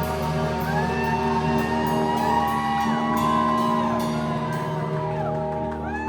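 A live rock band playing, with long held electric-guitar notes that slide up and down in pitch over repeated cymbal hits, and shouts and whoops from the room.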